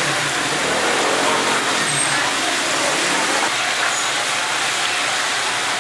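Deep-frying: food sizzling in hot oil in a large wok, a steady hiss with faint voices over it.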